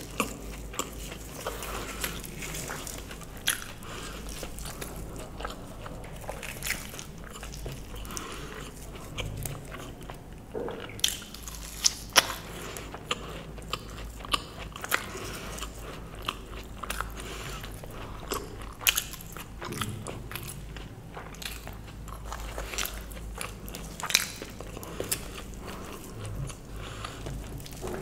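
Close-miked eating: biting and chewing deep-fried luchi dipped in potato curry, with sharp mouth clicks and small crunches at irregular intervals.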